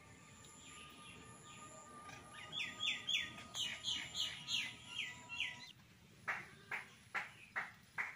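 Birds calling: a run of quick, falling chirps from about two and a half seconds in, then a second series of short calls at a steady pace from about six seconds in.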